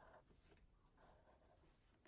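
Faint scratching of a pen on paper in short writing strokes.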